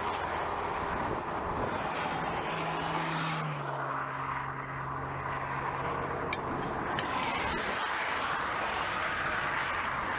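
Highway traffic rushing past, a steady noise of tyres and engines. A passing vehicle adds a hum that drops in pitch about three and a half seconds in and fades out by about seven seconds.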